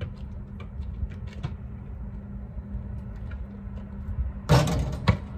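A basketball shot landing: about four and a half seconds in, the ball hits the hoop and backboard with a loud, rattling clang lasting about half a second, then bounces once on the asphalt. Under it runs a steady low hum, with faint light taps before the shot.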